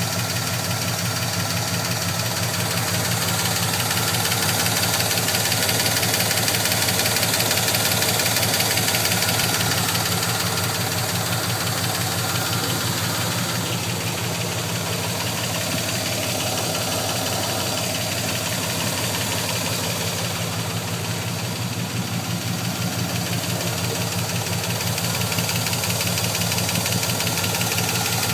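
GM LQ4 6.0-litre V8 idling steadily with a fast, regular lifter tick that comes on once the engine is hot, heard from the back of the driver's bank around cylinder #7. The tick was traced to a pinched oil-pump pickup O-ring missing a chunk.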